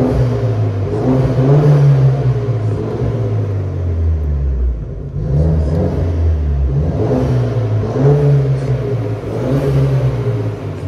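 BMW 220i's four-cylinder engine revved through a 240i-style exhaust, the revs climbing and falling back about three times.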